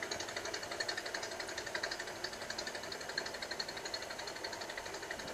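A faint, steady mechanical running sound with a fast, even ticking rhythm, like a small engine.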